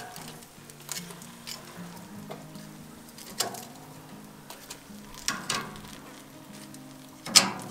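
Smoked beef short rib pieces dropped with tongs into a cast-iron pot of braising liquid and onions, landing with several short splashes, the loudest near the end.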